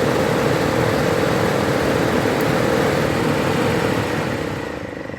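A/C blower fan of a 2011 Nissan Titan running on high: a steady loud rush of air with a hum, dying down near the end. The fan's cracked plastic wheel is screwed to its metal hub as a temporary fix.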